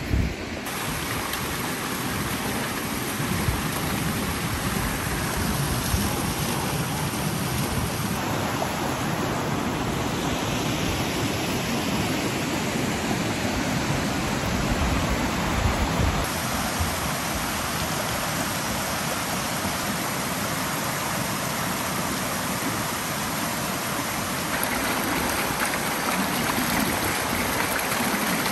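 Spring water gushing up and running over rocks in a stream, making a steady rushing sound.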